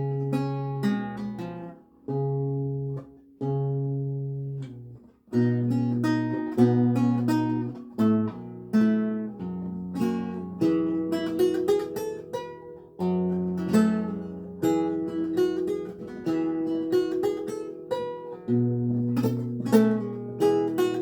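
A 7-course Renaissance lute, tuned to A=415, played solo with plucked notes. It opens with a few separate chords, each left to ring, with short breaks between them, then runs into a continuous passage of plucked notes over held bass notes.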